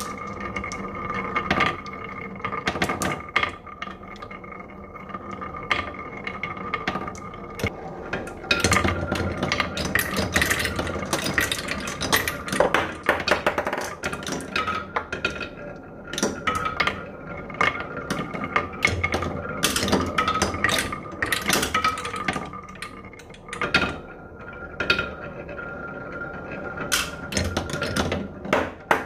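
Marbles rolling and clacking along a wooden marble run: a steady rolling hum under many sharp clicks and knocks as the balls drop over ridges and strike the wooden track.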